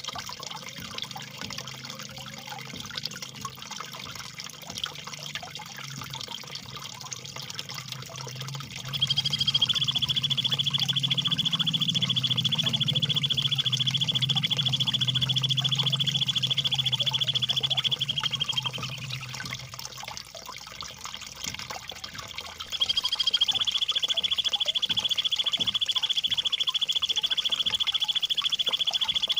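Trickling water runs throughout. About nine seconds in, a bird starts a long, fast rolling trill on one high, even pitch (the 'tembakan ngerol' used to tutor murai batu). It holds for about nine seconds and trails off, then starts again about 23 seconds in and carries on.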